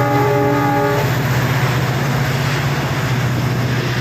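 Wagons of a loaded freight train rolling past with a steady low rumble and rattle. A train horn sounds and stops about a second in.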